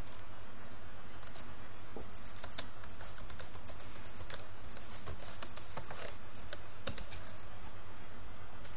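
Typing on a computer keyboard: irregular key clicks, unevenly spaced, over a steady low hum.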